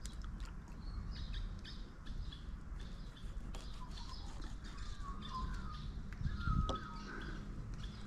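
Small birds chirping and twittering in short calls and little pitch glides, over a steady low background rumble, with a brief low thump about six and a half seconds in.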